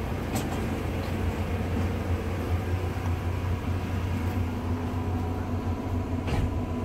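Diesel bus engine idling, a steady low hum, with a couple of light knocks.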